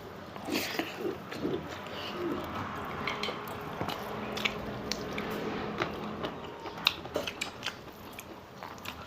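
Close-up eating sounds: a person chewing food, with scattered small clicks and crunches at uneven intervals.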